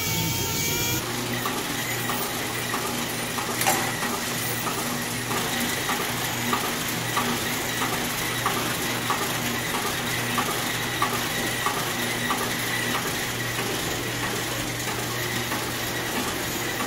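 Briefly at the start, an air-powered orbital sander. Then an automotive paint mixing rack running: a steady motor hum with regular mechanical clicks about every two-thirds of a second, and one sharper click about a quarter of the way in.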